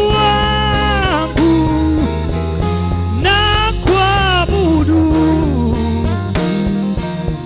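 Gospel praise-band music: a melody of long held notes over a continuous bass.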